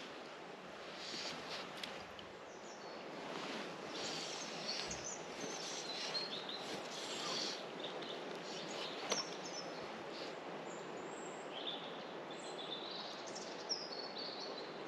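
Steady rush of river water, with small birds chirping now and then over it.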